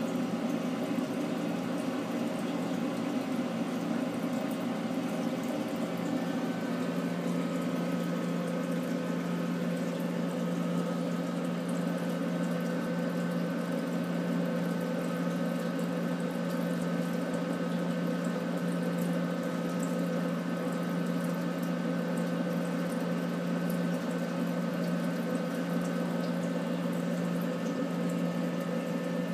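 Steady hum and water flow from a touch tank's circulating pump, with its tone shifting slightly about six seconds in.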